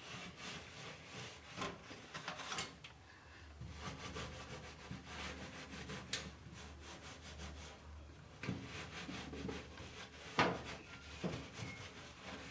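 Scrubbing pad rubbing over the inside surfaces of a cooker's oven in a run of uneven scrubbing strokes, with a sharper knock about ten seconds in.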